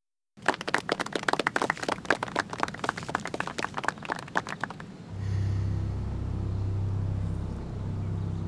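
Scattered applause from a small group of spectators, dying out about five seconds in. A low, steady musical drone follows.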